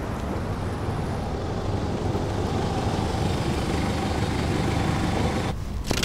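An SUV driving along the street: steady engine and tyre noise that grows slightly louder as it comes closer. About five and a half seconds in, the sound drops abruptly to a duller low rumble, and a sharp click comes just before the end.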